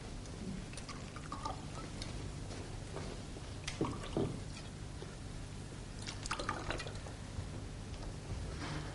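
Wine being poured from a bottle into glasses, with a few light clinks, over a steady low hum.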